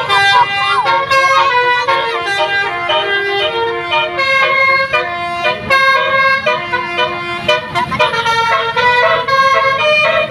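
Several basuri telolet musical air horns playing melodic tunes over one another, a dense run of loud stepped horn notes with no pause.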